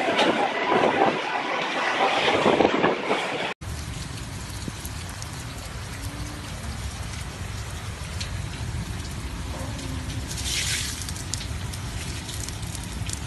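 Heavy wind-driven rainstorm, loud and gusty, which cuts off sharply about three and a half seconds in. After it comes a quieter low rumble with a few brief crackles.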